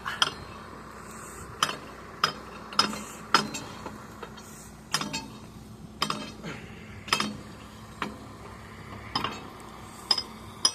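Sledgehammer striking a steel bucket pin on a Tata 200 excavator, driving the pin out: about a dozen ringing metal blows at uneven intervals.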